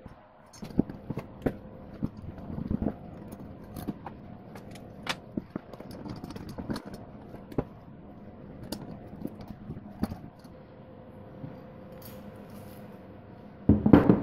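Scattered light clicks and clinks of Honda C90 engine parts handled by gloved hands during reassembly, over a faint steady hum. A louder clatter of metal near the end comes as the aluminium cylinder head is handled on the bench.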